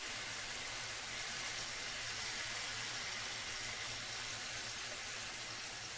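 Cubed, seasoned carne asada beef and garlic cloves sizzling steadily in oil in a frying pan, with a low steady hum underneath.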